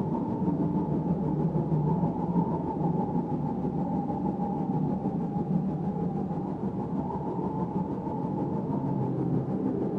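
Synthesized meditation drone of layered isochronic tones and binaural beats: a steady low rumbling hum with a higher tone held above it, unchanging throughout.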